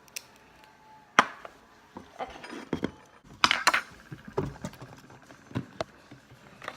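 Small objects being handled and set down on a table: scattered clinks and knocks, with the sharpest clacks about a second in and twice more about halfway through.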